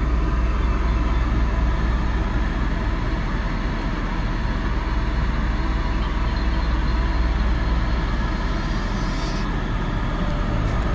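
Steady low mechanical rumble and hum of a parked tool truck's running machinery, heard from inside the truck, holding even throughout.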